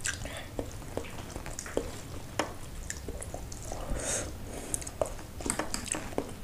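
Close-miked eating sounds: chewing and wet mouth noises, with a metal spoon and fork clicking and scraping against a bowl of instant ramen noodles in broth.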